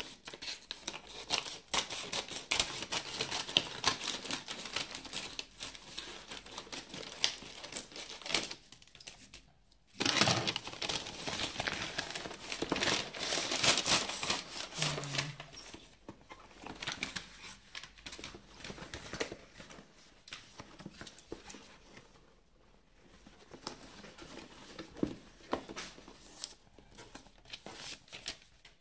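Amazon brown kraft-paper mailer bag crinkling and crackling as it is handled and torn open, loudest in two stretches split by a short pause about a third of the way in. Later comes quieter rustling as the cardboard headset box slides out of the paper.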